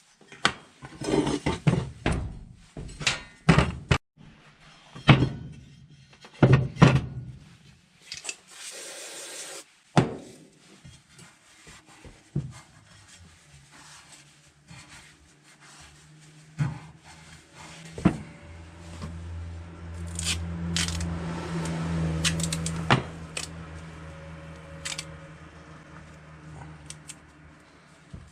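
Hand work on metal parts: a quick run of knocks and clunks, a brief hiss, then a low steady hum with scattered knocks over it.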